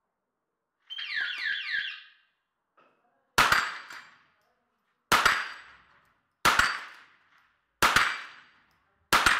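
Electronic shot-timer start signal, a quick run of falling beeps, then five .22 rimfire shots about a second and a half apart, each followed by the ringing clang of a steel plate target being hit.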